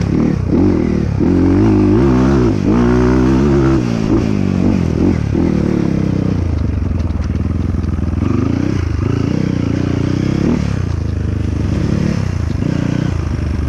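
Dirt bike engine revving up and down over and over as the throttle is worked, the pitch climbing and dropping several times.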